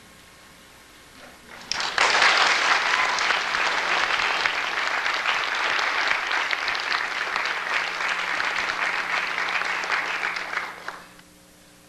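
Audience applauding, starting about two seconds in, holding steady for about nine seconds and dying away near the end.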